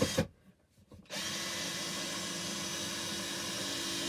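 Power drill running: a short burst cuts off with a couple of clicks right at the start, then a steady run of about four seconds begins about a second in, its pitch dipping slightly near the end. It is driving screws to fasten a ceiling fan's mounting box.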